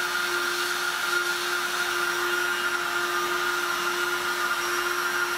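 Electric heat gun with a narrow nozzle running steadily, a rushing whir with a constant hum, blowing hot air onto a plastic piece to soften it.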